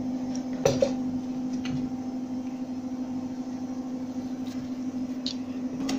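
A metal spoon scraping and clinking against a steel bowl while mixing gram-flour pakora batter: two sharp clinks a little under a second in and a few lighter taps later. Under it runs a steady low machine hum.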